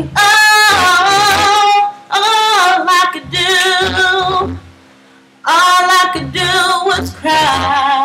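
A woman singing a soul ballad in long, ornamented held notes with a wide vibrato, in several phrases with a pause about two thirds of the way through. A steady low backing chord sustains under and between the phrases.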